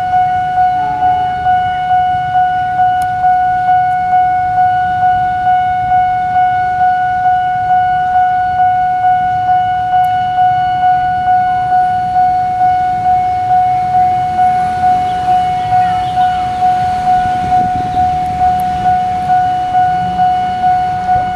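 Railway level-crossing warning alarm sounding a steady electronic tone that pulses about twice a second, with a KAI diesel locomotive's engine rumbling low underneath as it crosses.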